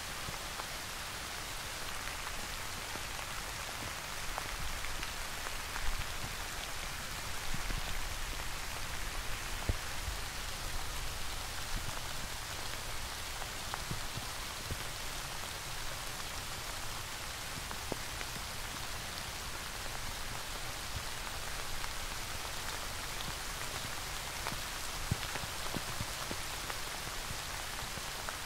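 Steady rain falling, an even hiss with a few louder drops standing out now and then.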